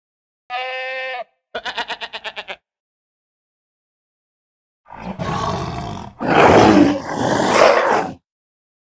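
Goat bleating twice, first a steady call, then a shorter quavering one. A few seconds later a tiger roars loudly in two long, rough parts, the second the louder.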